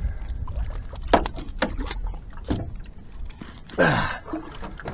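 Sharp knocks and clatter against the side of a small boat while a hooked catfish is brought alongside, over a low rumble. About four seconds in, a short groan-like sound falls in pitch.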